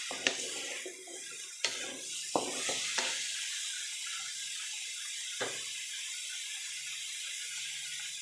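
Chayote strips sizzling in an aluminium wok, a steady hiss, while a wooden spatula stirs, scraping the pan and knocking against it several times in the first three seconds. The stirring stops after that, with one more knock about five seconds in, and the sizzling goes on.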